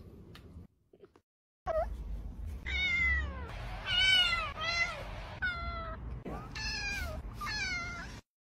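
A grey-and-white kitten meowing repeatedly: a run of about six meows, each bending up and then down in pitch, starting about two seconds in.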